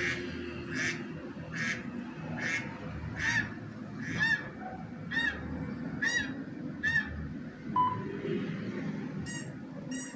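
Short pitched calls played through a laptop speaker, repeating a little under a second apart, with a brief beep about eight seconds in and two more calls near the end.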